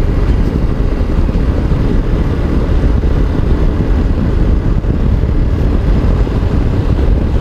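Motorcycle on the move, heard from the rider's own microphone: a steady low rumble of engine, wind and road noise.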